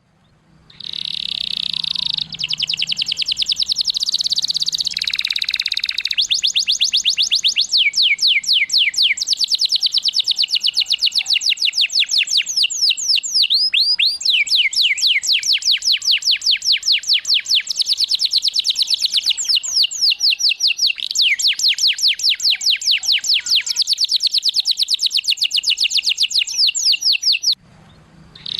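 Domestic canary singing a long song of rapid trills, each phrase a fast run of identical repeated notes, changing from one trill to the next with hardly a pause. The song breaks off briefly near the end.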